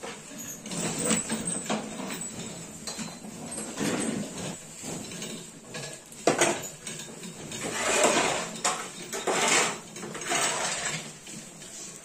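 Cattle eating hay at a wooden feed trough: hay rustling and chewing, with irregular snuffles and clattering knocks close by, one sharp knock about six seconds in.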